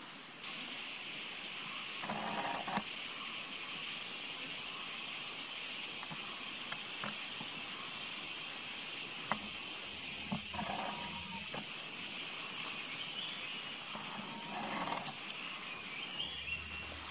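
Steady, dense chorus of forest insects, a high hiss that sets in just after the start and holds, with a faint high chirp every few seconds. A few brief rustles and sharp clicks from the branches break in now and then.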